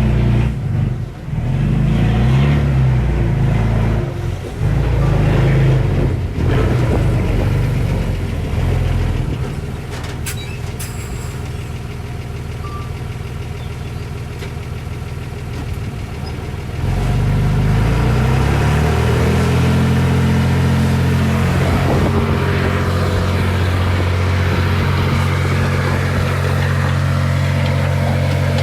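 Heavy diesel engine of an earthmoving machine working under changing load. It eases to a lower, steadier note about a third of the way in, then picks up a little past the middle and runs steadily at higher revs.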